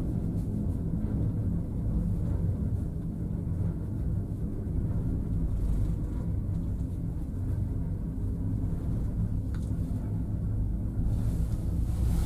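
Steady low rumble of a two-seat fixed-grip Trojer gondola cabin riding along the line, heard from inside the cabin.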